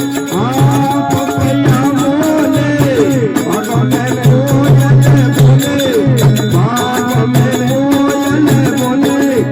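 Indian folk music: a wavering, gliding melody line over a steady drone and a low bass note repeating in short pulses.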